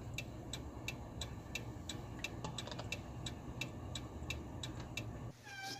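A car's indicator flasher ticking evenly, about three clicks a second, over the low rumble of the car. Near the end the rumble and ticking cut off suddenly and a short pitched tone sounds.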